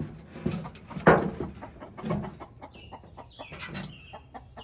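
Domestic hen clucking and squawking, agitated after being disturbed in the coop, with a few loud scuffling noises, the loudest about a second in.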